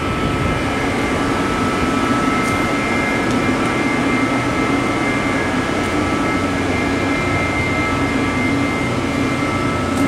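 Steady hum of the vacuum furnace's glycol cooling equipment running: a low machinery drone with a few faint, steady high tones above it.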